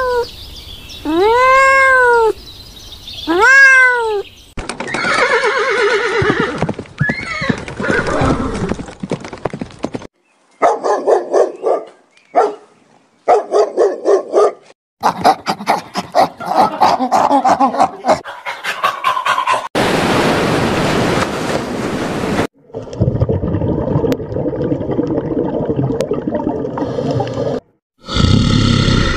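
A sequence of animal sounds. A domestic cat meows twice near the start, each call rising and then falling in pitch. Dog vocalisations follow, made of quick repeated sounds broken by short gaps.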